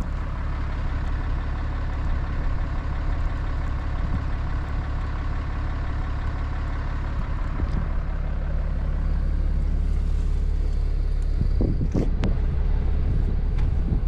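Ram pickup truck driving on a snowy highway, heard from inside the cab: a steady low engine and road rumble with tyre hiss, the hiss thinning out partway through. A few low thumps come near the end.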